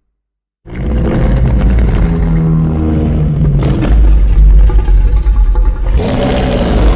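Godzilla Ultima monster sound effect: a loud, deep rumbling roar that starts suddenly after a brief silence and changes character about six seconds in.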